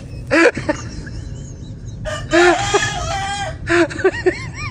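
Rooster crowing: a short call near the start, then one long crow of about a second and a half, followed by a string of short calls.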